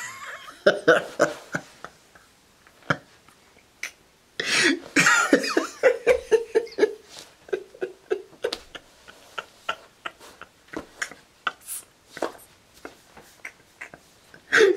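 A man laughing hard and breathlessly: a couple of longer bursts of laughter, then a long string of short, repeated laughs, several a second.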